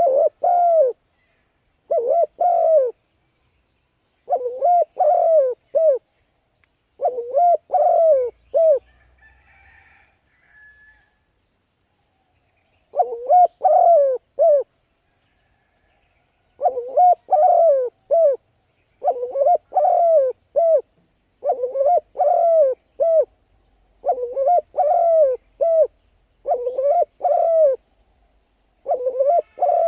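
Spotted dove cooing: a run of about ten phrases, each about a second long and made of three or four coo notes. There is a longer pause about a third of the way in, during which faint higher chirps from a small bird are heard.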